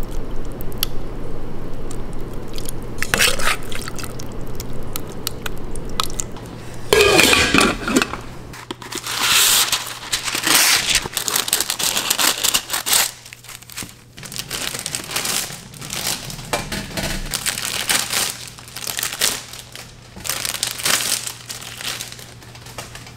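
Paper foil and paper pastry wrappers crinkling and rustling as they are handled, with metal tongs and utensils clicking now and then, over a steady low hum.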